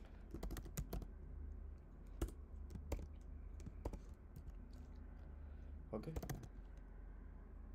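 Typing on a computer keyboard: scattered keystroke clicks, a few in quick runs, over a low steady hum.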